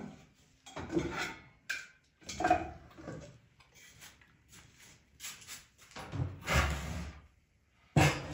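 Metal cookware being handled on an electric stove: a stainless steel pot, its lid and a frying pan lifted and set down, giving several irregular clatters and scrapes.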